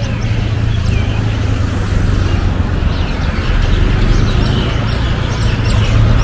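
Street traffic with a steady low engine hum, and many birds chirping over it.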